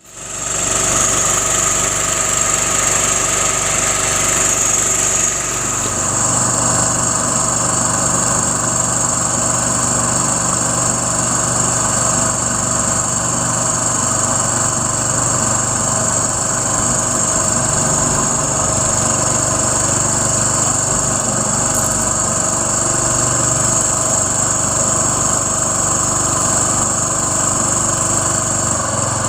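A small engine running steadily, its note shifting slightly about five seconds in.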